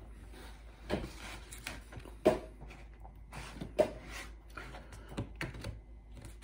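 Close-up eating and handling sounds: chewing pizza and handling the slice and its cardboard box, with scattered short clicks and three sharper knocks, about one, two and a quarter, and nearly four seconds in.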